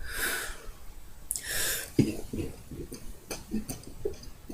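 A girl drawing two short, airy breaths, then faint clicks and small throat noises as she gets ready to burp again.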